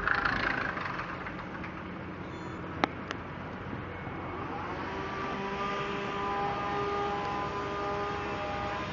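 Outdoor city traffic noise: a steady rush, two sharp clicks about three seconds in, and from about halfway an engine drone that rises slightly and then holds a steady pitch.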